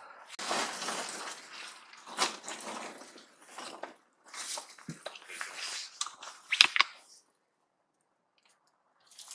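Footsteps crunching and rustling through dry leaves and debris, with a few sharp knocks about six and a half seconds in, then a sudden cut to silence just after seven seconds.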